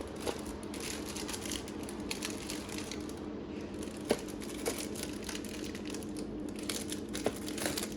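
Snack packets crinkling as they are handled inside an open vending machine, with scattered clicks and a few sharper taps over a steady low hum.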